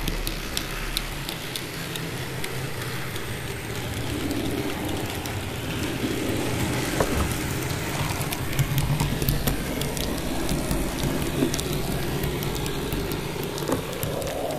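TT-scale model trains running on the layout: small metal wheels clicking and rattling over rail joints and points in a dense patter, over a low steady hum.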